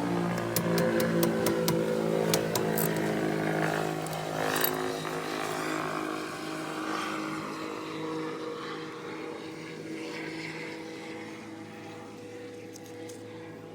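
A vehicle running with a steady pitched hum that slowly fades, with a few sharp clicks in the first five seconds.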